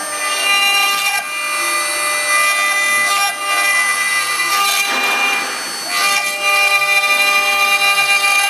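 Four-axis CNC stone router milling a white stone carving on its rotary axis. The spindle runs with a steady high whine while the bit grinds through the stone, and the cutting turns harsher and noisier for about a second around five seconds in.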